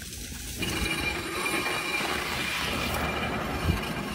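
A plastic tub dragged across ice, making a steady rough scraping that starts about half a second in.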